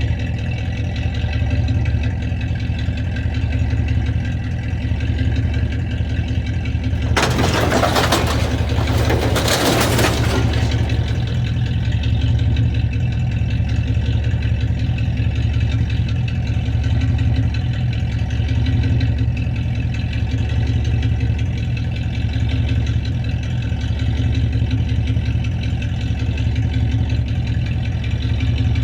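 A vehicle engine idling steadily, with a loud burst of hissing noise lasting about three seconds, starting about seven seconds in.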